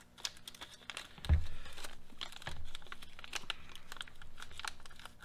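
Small clear plastic parts bag crinkling and crackling as it is handled and opened, with a thump about a second in.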